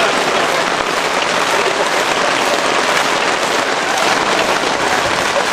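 Steady rain falling, a loud even hiss of many fine drops.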